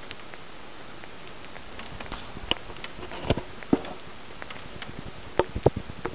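Irregular small clicks and taps of a sugar glider licking and eating baby food from a hand, over a steady hiss. They grow more frequent from about two seconds in, and a few are sharper knocks.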